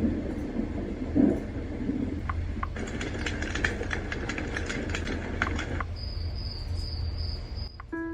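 White-noise machine cycling through its ambient sound samples: a low rumbling noise like a passing train, then a few seconds of dense crackling clicks, then a steady high insect-like trill. Chime-like notes begin right at the end.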